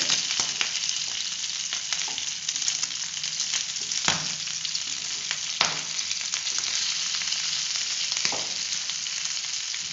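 Mutton pieces and garlic cloves sizzling steadily in hot butter in a frying pan. Three sharp knocks, about four, five and a half and eight seconds in, come as the pieces are turned over with tongs.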